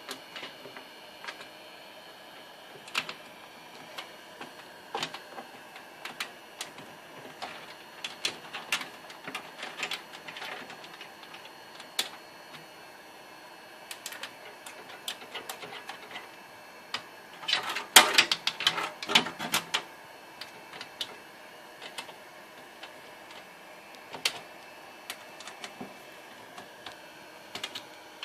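Scattered clicks, taps and light rattles of computer hardware being handled during a motherboard installation in a PC case, with a busier, louder run of clatter about eighteen seconds in.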